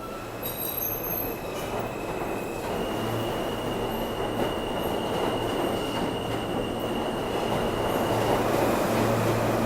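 New York City subway train moving through the station, its noise building steadily louder, with a steady high-pitched squeal from the wheels or motors for several seconds.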